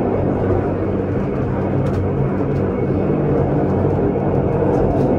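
Pilatus Railway cogwheel railcar running on its rack: a steady, even rumble with a constant low hum.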